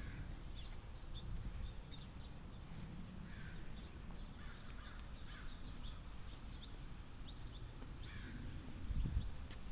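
Birds calling, a few short harsh calls and small chirps spread through, over a steady low rumble, with a low thump about nine seconds in.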